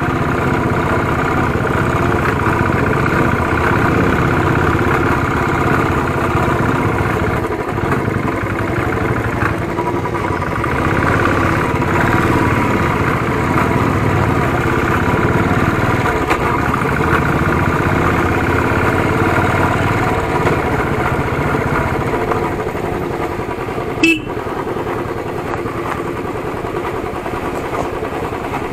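Royal Enfield motorcycle engine running steadily while being ridden, heard from the rider's seat. Near the end there is one brief sharp sound, the loudest moment.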